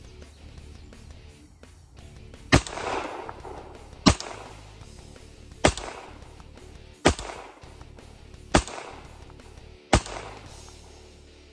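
Six shots from a Rock Island Armory 5-inch 1911A1 pistol in 9mm, fired at a steady pace about a second and a half apart, each ringing out briefly.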